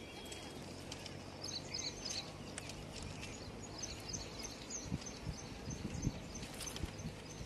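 Outdoor ambience: small birds chirping repeatedly over a steady low rush of noise, with a few low thumps near the end.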